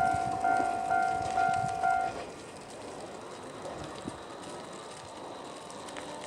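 Japanese railway level-crossing electronic alarm bell ringing, a two-tone 'kan-kan' about twice a second, stopping about two seconds in. After that only faint background noise is heard.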